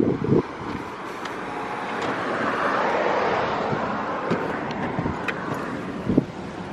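A vehicle passing: road noise that swells to a peak around the middle and fades away again.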